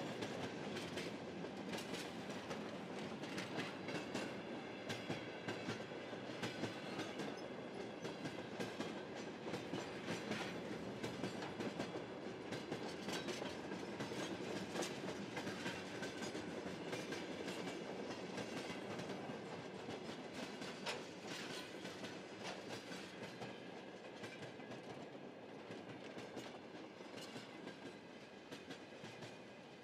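Train rolling on rails, its wheels clattering over the rail joints, slowly fading away.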